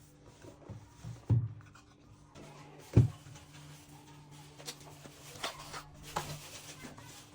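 Packaging and small parts being handled during an unboxing: two sharp low thumps, about one and three seconds in, then light clicks and rustling, over a steady low hum.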